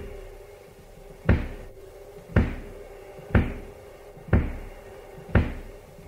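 Slow single drum beats, one about every second, each a deep thump with a short ringing decay, over a faint steady held note in a rock track.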